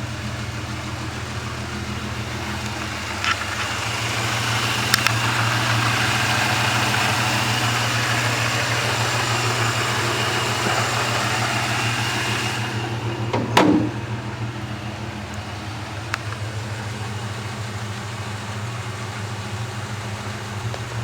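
Supercharged 3.8-litre Holden L67 V6 idling steadily. A broader hiss swells up through the middle, and there is a sharp knock about two-thirds of the way through.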